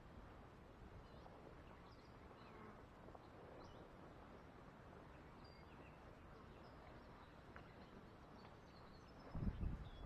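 Faint open-air ambience: scattered distant bird chirps over a low steady hiss, with a brief low rumble about nine and a half seconds in.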